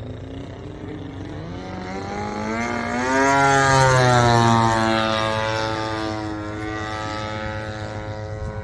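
Engine and propeller of a giant-scale radio-controlled model airplane making a low flyby: the engine note grows louder and higher as the plane approaches, is loudest as it passes overhead about three to four seconds in, then drops in pitch as it flies away.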